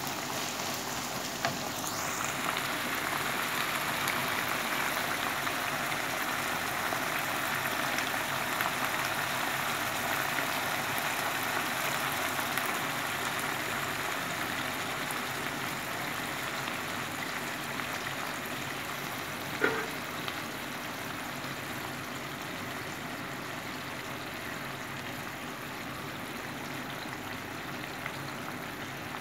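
Sliced onions and tuna sizzling steadily in a frying pan. There is one sharp knock about two-thirds of the way through. The sizzle softens in the second half as milk is poured in and cools the pan.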